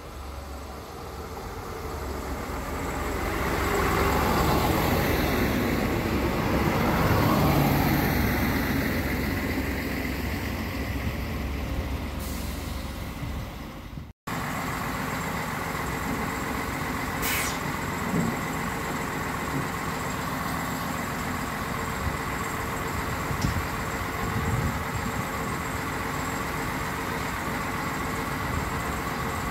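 X 73500 diesel railcar arriving: engine and wheel noise builds to a peak and then eases off. After an abrupt cut, a diesel railcar idles at the platform with a steady engine hum.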